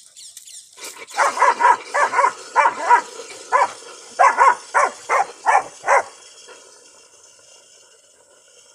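Dog giving a run of about fifteen short, high barks in quick uneven groups, which stop about six seconds in. A faint steady hiss of running tap water lies underneath.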